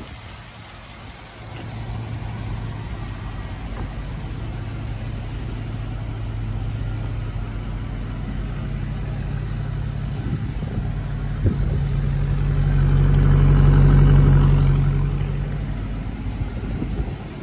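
A 1952 Buick Super's straight-eight engine idling steadily, getting louder for a few seconds near the end and then easing back.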